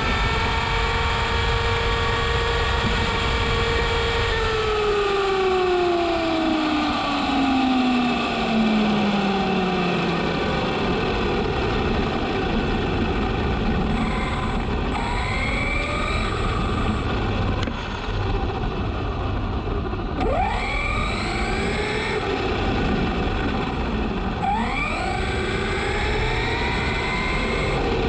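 Traxxas Slash BL-2S RC truck's brushless motor and drivetrain whining over tyre and road noise, heard from on board the truck. The whine holds steady at speed for about four seconds, then falls away as the truck slows, followed by several short rising whines as it accelerates again.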